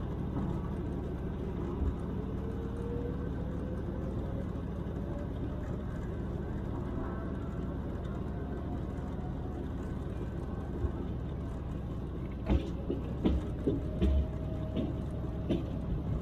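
LXD2 narrow-gauge diesel locomotive running with a steady low rumble and a whine that slowly rises in pitch over the first few seconds. Several sharp knocks and clanks come in the last few seconds.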